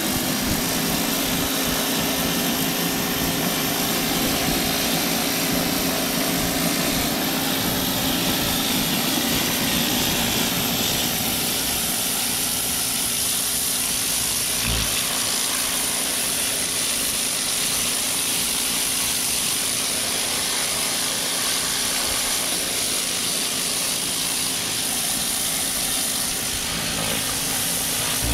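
Stanley 2150 electric pressure washer running steadily, its pump motor humming under the continuous hiss of a turbo-nozzle water jet spraying brick. The hiss gets sharper about eleven seconds in.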